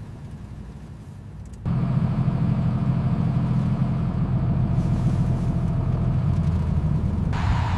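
Peterbilt truck's engine humming steadily at a low pitch, jumping suddenly louder about two seconds in. Near the end a hiss joins it.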